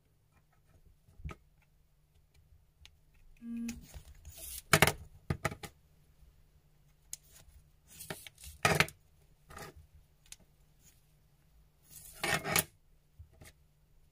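Wooden lacing beads being handled in a metal tin, clicking and clattering against each other and the tin in scattered bursts. The loudest clatter comes about five seconds in and another near the end.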